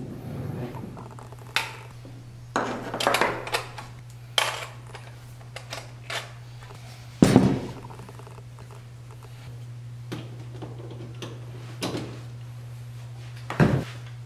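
Knocks and clatter of a compact wood router (trimmer) being handled and adjusted on a workbench, with its motor not running; the loudest clunk comes about seven seconds in. A steady low hum runs underneath.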